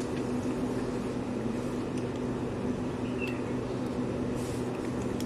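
A steady, low machine hum is the main sound. Over it come a few faint clicks from cats crunching dry kibble.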